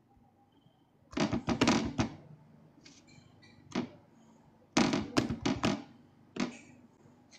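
Quick knocks and clicky thuds in two rapid flurries, each about a second long, one about a second in and one near the five-second mark, with a single knock between them and another after.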